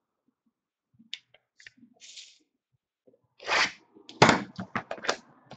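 Trading cards being handled on a table: a few faint clicks, a short rustle about two seconds in, a louder swish of a card sliding past three and a half seconds, then a quick run of sharp clicks and taps as cards are set down.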